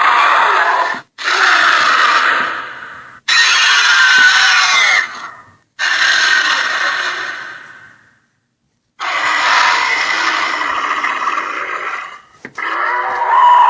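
Acrocanthosaurus dinosaur sound effects: a run of about five separate harsh roars, each one to three seconds long, some cut off suddenly and some fading out, with short gaps between.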